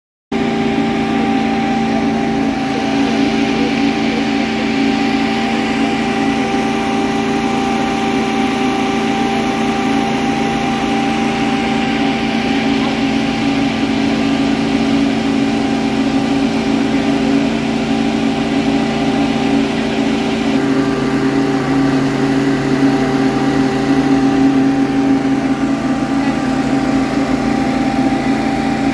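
A fire engine's engine running steadily at idle, a continuous hum with several fixed tones; about twenty seconds in a deeper tone joins.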